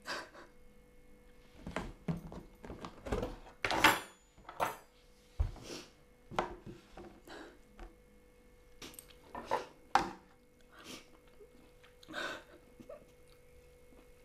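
A woman crying without words, in irregular sobs and gasping breaths, the loudest sob about four seconds in, over a faint steady hum.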